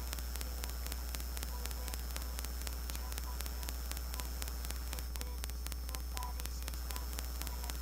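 Steady low electrical hum with static hiss and fast, evenly spaced clicking: noise from the microphone and recording chain.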